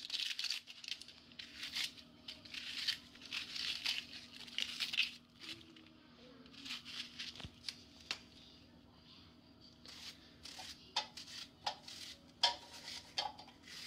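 Dry, papery onion skin being peeled off with a knife, a crinkly tearing rustle in repeated bursts, followed by short crisp clicks as the onion is sliced by hand with a knife.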